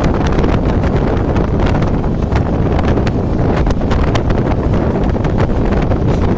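Antyodaya Express passenger train running at speed, heard from on board: a loud steady rumble of the coach and wheels with wind buffeting the microphone and many quick, irregular clicks and rattles.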